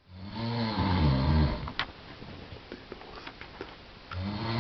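A person snoring: one long, low snore, then a quieter pause with a few faint clicks, and the next snore begins near the end.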